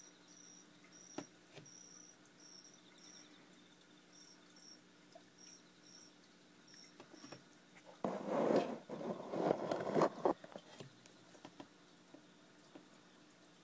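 A cricket chirping in short, evenly spaced high chirps, about two a second, for the first seven seconds. About eight seconds in, a loud rustling, scraping noise lasts two to three seconds.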